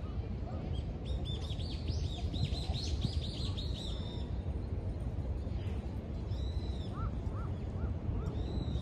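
Birds chirping: a quick run of high, rapid chirps for about three seconds, then scattered single calls and four short lower notes near the end. A steady low rumble runs underneath.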